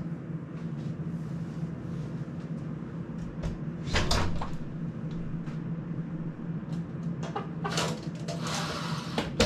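Cupboard being opened and rummaged through, with knocks and rattles. The loudest comes about four seconds in, and a cluster more comes near the end. Under it runs the steady hum of an electric fan.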